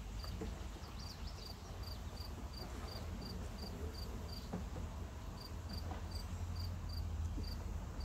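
Cricket chirping steadily, about two to three short chirps a second, with a brief pause about halfway, over a low rumble.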